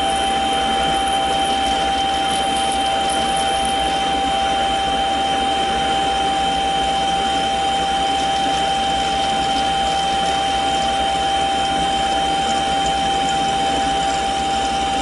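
Mini lathe running while a spring-mounted parting blade cuts off a 1-1/4 inch 1018 steel rod: a steady whine with two constant tones over the even hiss of the cut, with no chatter.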